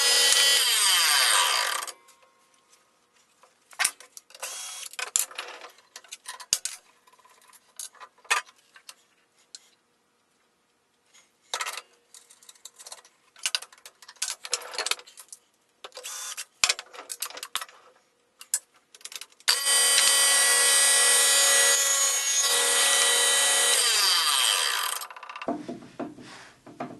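Table saw with a wobble-wheel dado blade running, then spinning down about two seconds in. Then a long spell of scattered clicks and metal knocks as the blade is handled and adjusted on the arbor. At about twenty seconds the saw runs again for about five seconds on a test dado cut, winding down near the end.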